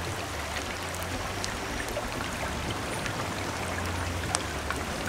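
Steady rushing of running stream water, with a few faint clicks over it.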